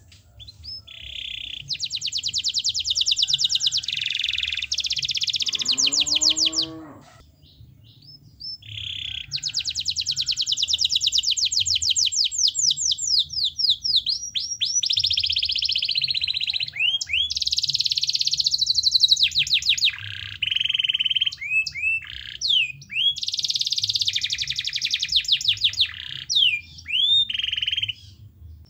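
Domestic canary in full, constant song: long fast trills and rapid runs of repeated notes, with quick sweeping whistles and a short pause about seven seconds in. The song is the kind played to coax reluctant canaries into singing.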